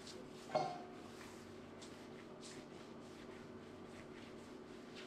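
A single sharp clink about half a second in, ringing briefly, like a hard object set down or knocked. Faint handling rustles follow, over a steady low hum.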